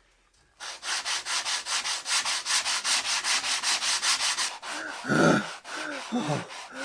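Wood being sanded by hand with sandpaper in fast, even back-and-forth strokes, about six a second, taking a wooden piece down to thickness. Toward the end the strokes grow uneven and a voice groans with the effort.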